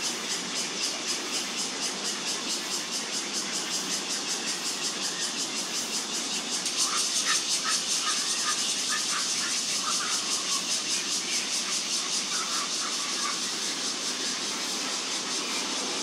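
Outdoor ambience: a steady high pulsing buzz, about four pulses a second, over a low rumble, with a run of short bird-like chirps from about seven to thirteen seconds in.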